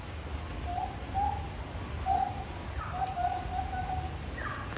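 An animal hooting: short, steady-pitched hoots at irregular intervals, with a quick run of four or five together about three seconds in, over a steady low background hum.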